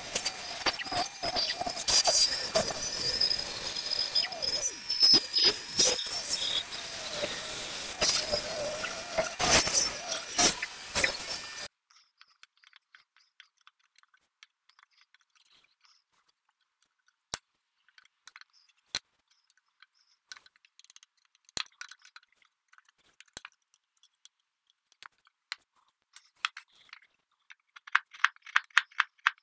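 Bandsaw with a 1/4-inch blade running and cutting a curve through 3/4-inch plywood: a steady motor hum with clicks from the blade in the wood. It stops abruptly about twelve seconds in, leaving near silence with scattered small clicks, and near the end a fast series of scraping clicks from a hand chisel worked into the drill press table.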